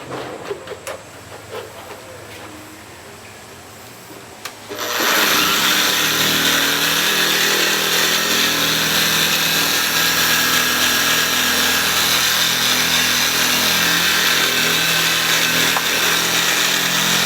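A few light handling clicks and taps, then a dual-action polisher switches on suddenly about five seconds in and runs steadily, polishing a headlight.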